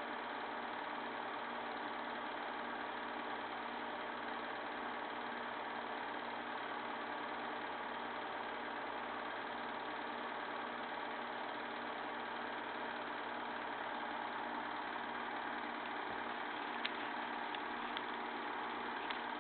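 Bell and Howell film projector running steadily, its motor and mechanism giving an even hum, freshly lubricated with machine oil. A few sharp clicks come near the end.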